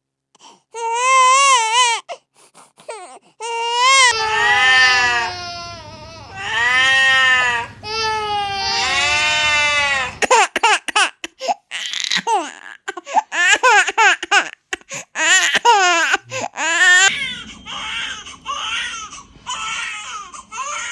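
Baby crying: long, wavering wails, then shorter broken sobbing cries that grow quieter near the end.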